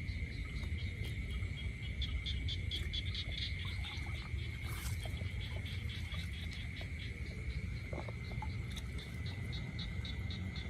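Night insect chorus: a steady high trill with a second chirp pulsing about six times a second over it, above a low rumble.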